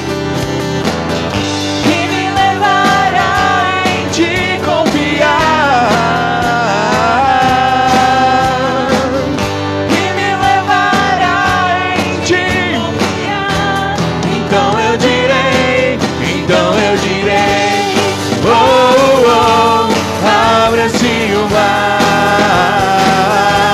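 Live worship band playing a Portuguese-language gospel song, acoustic guitar and keyboard under a woman's voice singing the melody.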